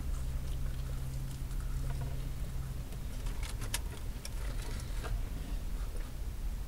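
Paper sandwich wrapper being handled, rustling and crinkling with scattered sharp crackles, the sharpest about halfway through, over a steady low hum inside the car.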